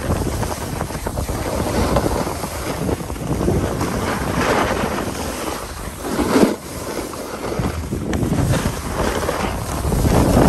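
Wind rushing over the microphone of a moving snowboarder, mixed with the hiss and scrape of a snowboard's edges on groomed snow. The rushing noise swells twice near the middle.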